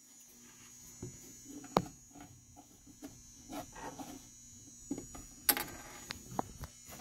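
Light clicks and taps from hands handling laminated furniture panels, the sharpest just under two seconds in and another about five and a half seconds in, over a faint steady hum.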